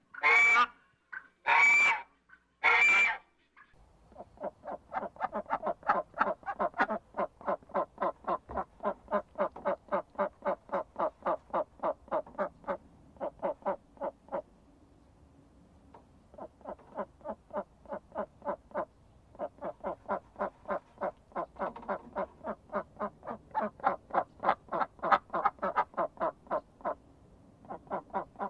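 Three loud calls near the start, then a bird calling in two long runs of rapid croaking notes, about four or five a second.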